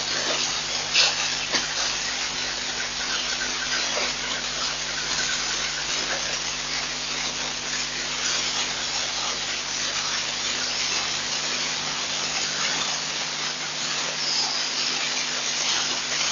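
Steady hiss with a low hum beneath it, and a couple of faint clicks about a second in.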